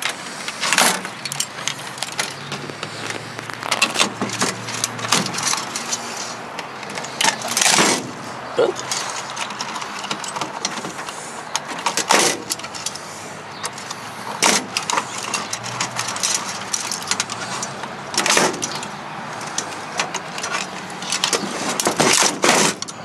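Wire cutters snipping wires, and wire bundles and parts rattling against the sheet-metal chassis of an old FM receiver being stripped apart: irregular sharp snips, clicks and clinks, the loudest a few seconds apart, over a steady background noise.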